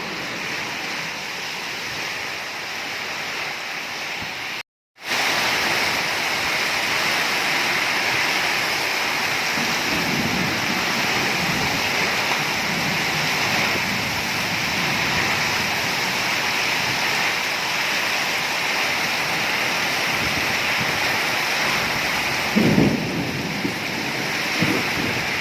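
Heavy rain pouring down in a windstorm, a steady dense hiss that drops out briefly about five seconds in and returns louder. Low rumbling surges come through a couple of times, strongest near the end.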